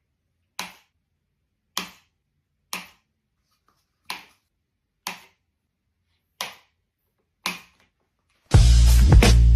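A series of seven short, sharp taps, unevenly spaced about a second apart, with dead silence between them. Near the end, loud music with heavy bass cuts in.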